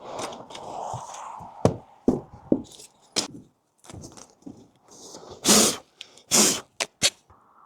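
Hands-on construction work: scattered knocks, clicks and scrapes, with two loud short ripping noises about a second apart past the middle.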